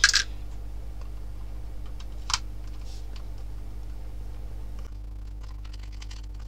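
Sharp plastic clicks from hands handling a Holy Stone HS155 mini drone's plastic body while taking it apart: a loud click right at the start, a second one a couple of seconds later, then faint scattered ticks, over a steady low hum.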